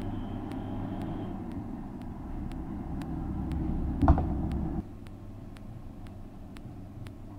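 A road vehicle's engine rumbles steadily and grows louder, with a sharp knock about four seconds in. Soon after, it cuts off abruptly to a quieter hum.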